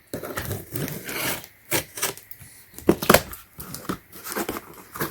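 Packaging being torn open and crinkled by hand, with a few sharp knocks in the middle as the contents are handled.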